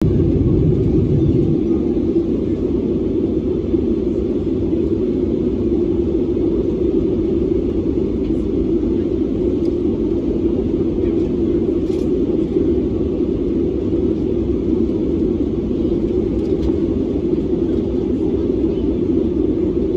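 Steady cabin noise inside an Airbus A320neo airliner in flight on descent: an even, unbroken rumble of its CFM LEAP-1A turbofan engines and the airflow over the fuselage.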